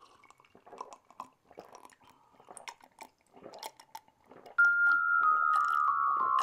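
Faint gulping and swallowing as two people drink from glasses, then, about four and a half seconds in, a loud run of ringing mallet-percussion notes stepping steadily down in pitch, about three notes a second.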